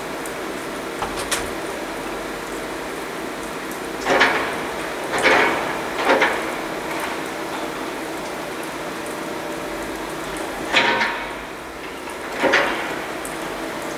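Excavator demolishing a stone masonry wall: a steady engine hum with five clattering crashes of stone and rubble, three in quick succession a few seconds in and two more near the end.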